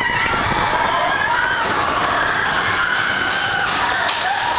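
Riders on a mine-train roller coaster screaming, long held overlapping screams over the rumble of the ride, with a sharp crack near the end.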